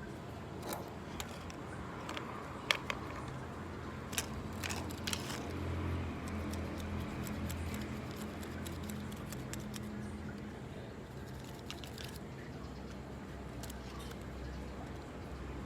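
Scattered light clicks and rattles, as of small hard parts being handled, with the sharpest click a few seconds in, over a steady low hum.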